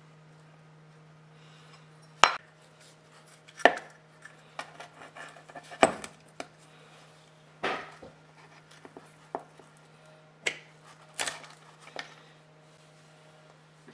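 Small metal drill parts being handled and set down on a wooden workbench during disassembly: a string of sharp, irregular clacks and knocks, the loudest about seven times, over a steady low hum.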